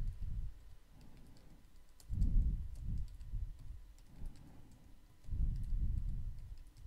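Computer keyboard typing in short bursts of rapid keystrokes, about two seconds in and again about five seconds in, as a password is entered and then re-entered.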